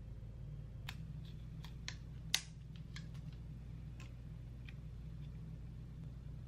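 Light clicks and taps of small plastic blister-pack skincare samples being handled, peeled open and set down on a granite countertop, the sharpest about two and a half seconds in, over a low steady hum.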